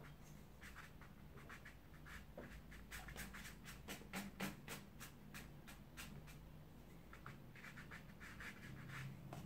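Faint scratchy brushing of a wide flat watercolour brush dragged across textured watercolour paper, a quick run of short strokes in the middle and a few more near the end.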